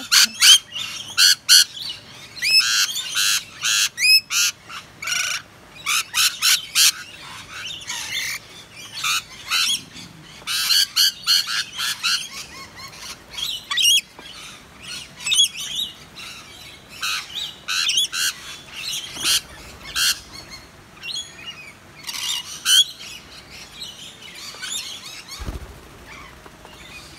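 Rainbow lorikeets screeching and chattering in many short calls, densest in the first half and thinning out later. A single low thump comes near the end.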